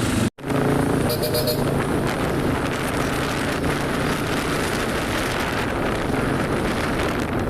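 Dense, steady hubbub of a busy fairground crowd, with many voices mixed with machinery noise, cut by a brief dropout to silence just after the start.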